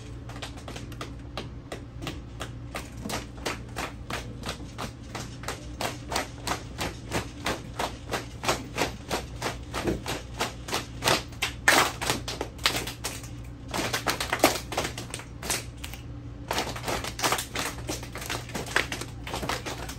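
Group body percussion: many hands clapping and slapping together in a steady rhythm, about two to three beats a second.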